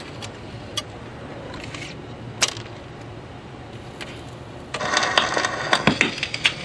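Magnavox console record changer cycling: a few faint clicks at first, then from about two-thirds of the way in a dense clatter of mechanical clicks and rattles as the changer mechanism runs to drop the next record.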